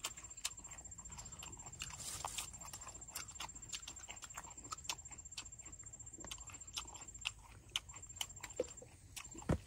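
Chewing and lip-smacking of people eating chili-coated fried chicken: scattered soft, wet clicks and smacks, with a louder knock near the end.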